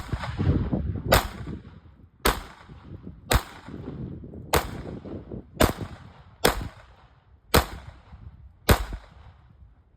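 Erma LA22 .22 LR toggle-action pistol firing nine single shots at a slow, even pace of about one a second, each a sharp crack with a short ringing tail. The pistol cycles every round without a failure.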